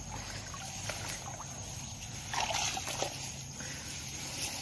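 Faint sloshing of shallow water and rustling of grass in a weedy ditch, with two louder swishes about halfway through.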